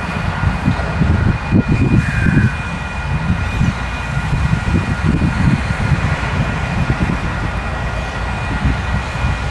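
Wind buffeting the microphone over the low rumble of a freight train hauled by DC and DXC class diesel-electric locomotives, still some way off and approaching.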